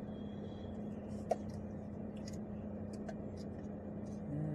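Steady low hum of a car cabin, with one sharp click about a second in and a few faint ticks.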